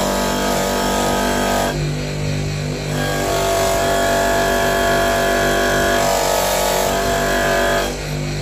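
Electric bench polishing motor spinning a cloth buffing wheel, with a brass burner part held against it for final polishing. The steady hum changes tone several times as the piece is pressed on and moved, and dips slightly near the end when the piece comes off the wheel.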